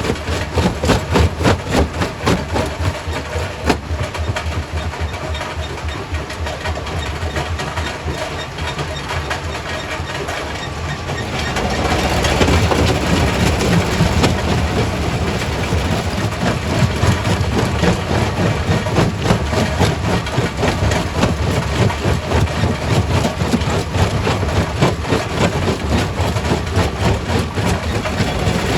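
Quarry primary rock crusher running, a heavy machine noise with a rapid, even pulsing. About twelve seconds in it grows louder and rougher, with a deeper rumble.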